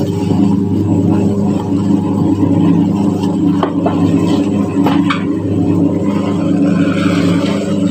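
Fertiliser mixer machine running with a steady, even hum while it blends a fertiliser batch, with a few sharp ticks as granular material is poured into its hopper from a sack.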